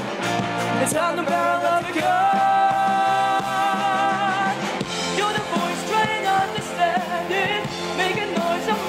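Live pop-rock band playing: a woman sings lead into a handheld microphone over electric guitars and drums. About two seconds in she holds one long note that breaks into vibrato at its end, then carries on with shorter sung phrases.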